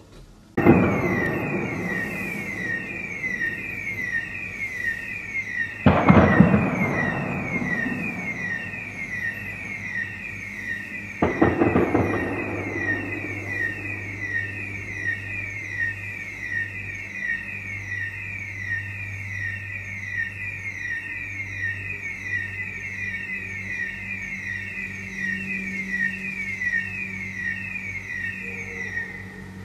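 A siren wails without pause in fast repeated falling sweeps, about two a second. Two loud shots or blasts ring out about 6 and 11 seconds in, each with a long echoing tail, heard as gunfire in the street.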